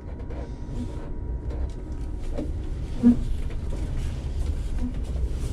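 Cab of a Mack LR Electric battery-electric refuse truck moving slowly in reverse: low drivetrain and road rumble with a thin, steady whine from the electric drive, light rattles and clicks, and one brief louder blip about three seconds in.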